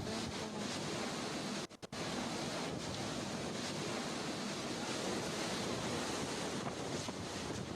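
Strong hurricane winds blowing as a steady rushing noise that buffets the microphone. The sound drops out for a split second a little under two seconds in.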